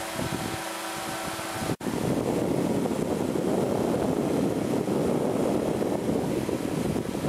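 Powered parachute's engine and propeller running steadily in flight, with wind rushing over the microphone. About two seconds in the sound drops out for an instant and comes back louder and rougher, the wind buffeting more heavily.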